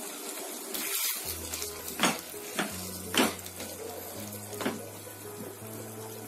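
Water just added to a pan of kohlrabi and potato curry bubbles and hisses over the heat, while a wooden spatula stirs the chunks and knocks against the pan several times.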